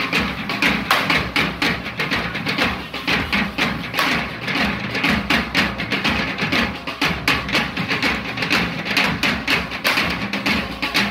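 A correfoc drum group playing a fast, driving beat without pause, mixed with the hiss and crackle of hand-held spark-spraying fireworks.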